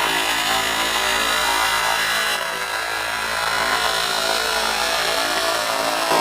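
Buzzy electronic synthesized voice tone from the 4ormulator V3, held at a steady pitch, with its timbre changing about two and a half seconds in.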